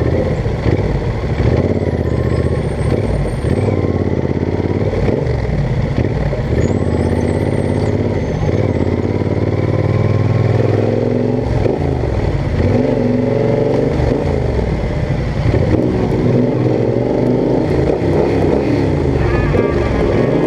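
Yamaha Super Ténéré 1200's parallel-twin engine running while the bike rides slowly through traffic, its pitch rising and falling with the throttle.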